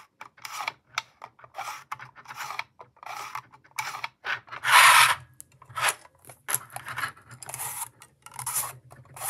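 Plastic sliding door of a Bachmann model boxcar being slid open and shut by hand, a string of short scraping rubs, the loudest and longest about five seconds in.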